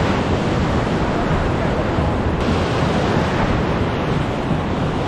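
Surf breaking and washing over rocks, a steady loud rush of churning water, with wind buffeting the microphone.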